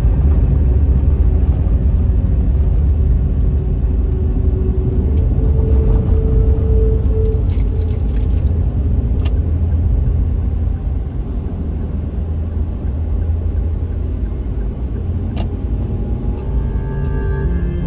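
Steady low rumble of road and engine noise inside a moving car's cabin. Faint music comes back in near the end.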